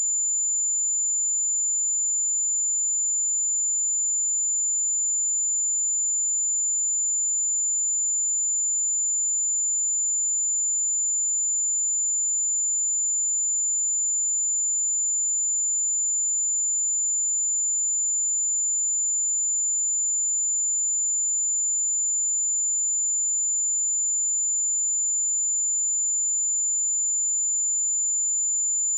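Pure 7074 Hz sine-wave test tone: one steady, very high-pitched whistle held at a constant level.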